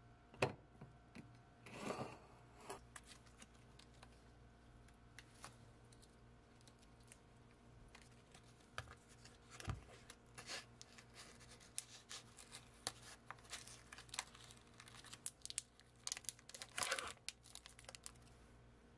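Plastic wrapper of a string cheese stick being torn open and crinkled by hand, a string of small crackles and rustles that thicken in the second half, after a single sharp tap near the start.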